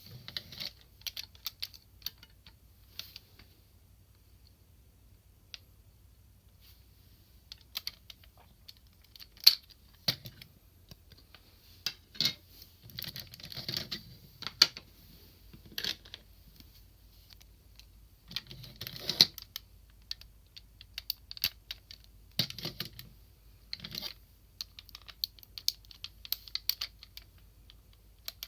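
Hard plastic parts of a DX Sirender robot toy clicking and clattering as it is handled and transformed, in irregular clusters with a lull a few seconds in.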